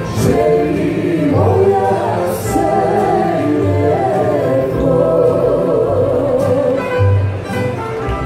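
A tamburica orchestra of plucked tamburas playing live while women sing a Bosnian sevdalinka over it.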